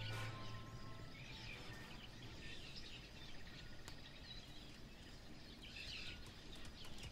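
Faint outdoor background noise with birds chirping now and then.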